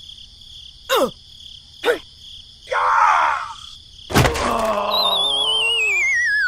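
A string of short squeaky sounds: two quick falling chirps, a squeaky burst, and a sharp thud. After the thud comes a wavering whistle that slides steadily down in pitch.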